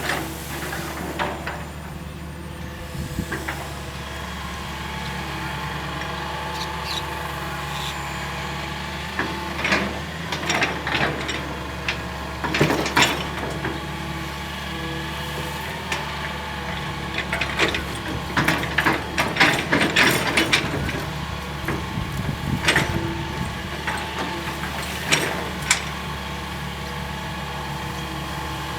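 Hitachi EX220-1 long-reach excavator's diesel engine running steadily. Over it come several bursts of clanking and knocking in the middle and single knocks near the end, from the machine at work.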